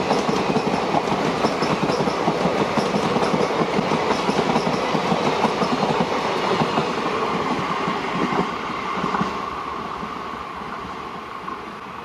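Passenger train coaches running past at speed, their wheels clicking and rattling over the rail joints in a rapid clickety-clack. After about eight or nine seconds the sound fades steadily as the last coach passes and the train draws away.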